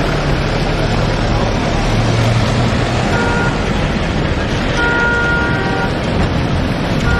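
Engines of a slow convoy of SUVs and pickups moving off, over a steady rush of noise. A vehicle horn sounds briefly about three seconds in, then again for about a second around five seconds in.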